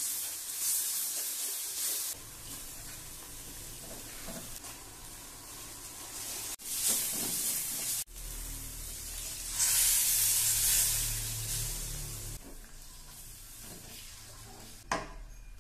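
Ground chili and shallot spice paste sizzling as it fries in a wok, stirred and scraped around with a spatula. The sizzle swells loudest a little past halfway, and there is a sharp click near the end.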